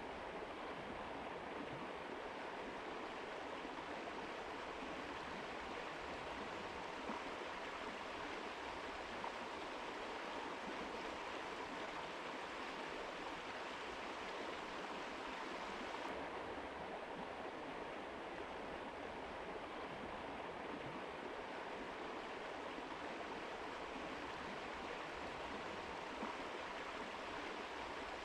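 Mountain river rushing steadily over rocks: a continuous, even flow of water.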